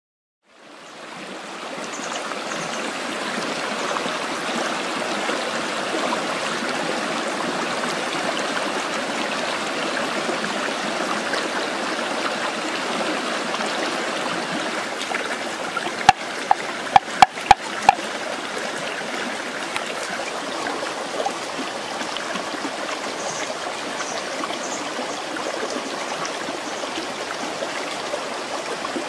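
Shallow rocky stream running steadily, fading in over the first couple of seconds. About two-thirds of the way in come five sharp knocks in under two seconds, the loudest sounds.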